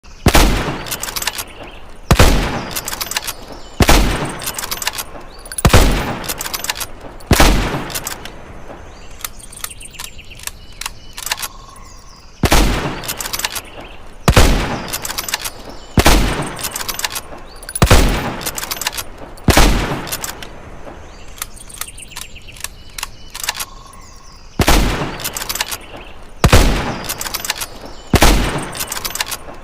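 Springfield rifle firing single shots, each with a ringing tail, about one every second and three-quarters, in a group of five, a pause, another five, a pause, then three more.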